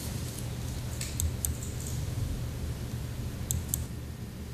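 Meeting-room tone: a steady low hum with a few faint, sharp clicks about a second in and a quick pair near the end.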